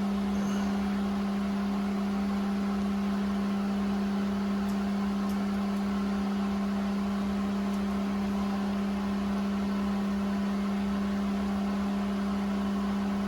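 A steady, unchanging low hum, like a running motor or electrical equipment, with a couple of faint ticks about five seconds in.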